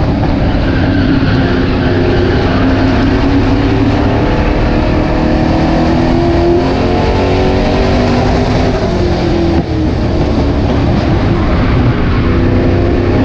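Super stock race car's V8 engine at racing speed, heard from inside the cockpit. Its pitch climbs, drops about nine to ten seconds in as the throttle is lifted, then climbs again.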